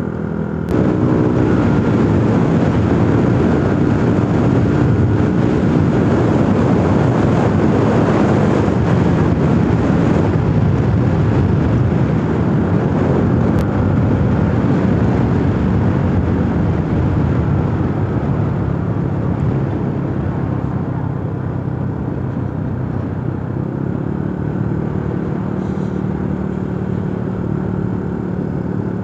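Motorcycle on the move: the engine running under a heavy rush of wind and road noise on the microphone, which eases a little in the last several seconds as the engine note comes through more clearly.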